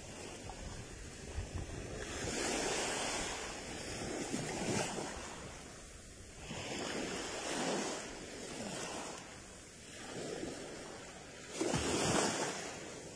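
Rough sea waves washing in over the shore at the water's edge, surging and falling back every two to three seconds, with the biggest surge near the end.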